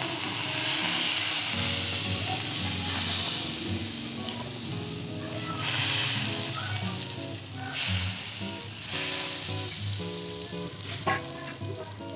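Hot oil poured over a karahi of cooked mash daal as a baghar (tempering), sizzling as it hits. The sizzle swells in about three surges as more oil goes in, then fades near the end.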